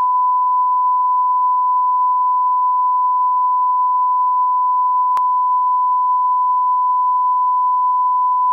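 Steady 1 kHz line-up test tone that goes with colour bars, one unbroken pitch, with a single brief click about five seconds in.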